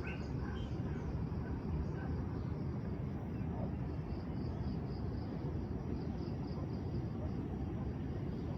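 Dawn hillside ambience: a steady low rumble with a high, evenly pulsing insect trill running through it, a few pulses a second.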